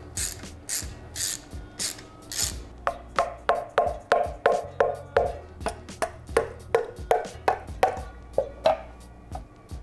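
Hand tools working a stuck timing-chain part on an engine block: rasping strokes about twice a second, then a run of sharp, ringing knocks about three a second that stops about nine seconds in.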